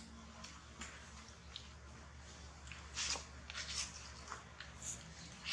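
Faint, scattered crackles and rustles from a baby long-tailed macaque moving about on dry, leaf-strewn ground, a few short ones around the middle and one near the end, over a low steady hum.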